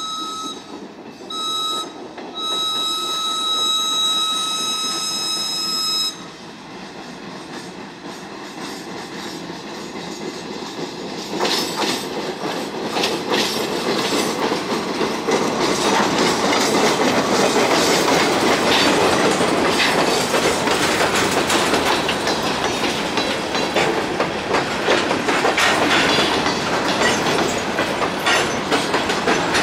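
A high-pitched air horn on the leading caboose sounds a short blast, then a long one, for the grade crossing as the train shoves back; it stops about six seconds in. Then the caboose and covered hopper cars roll past, steel wheels clacking over the rail joints with some squeal, growing louder and staying loud.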